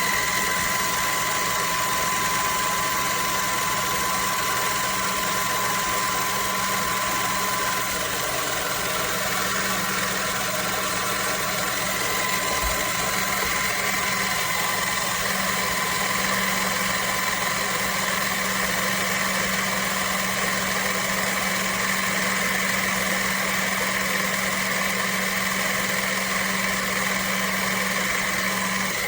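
Small 12V electric motor of a car jack kit running steadily with an even hum. Its tone shifts slightly about 8 and 12 seconds in.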